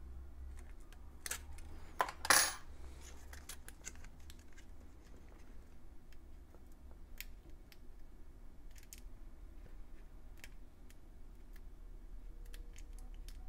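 A short metallic clatter about two seconds in, with a smaller click just before it, like small metal tools or parts knocking on a hard surface. After it come scattered light clicks of hands working at the trackpad and its cable inside an open MacBook Air.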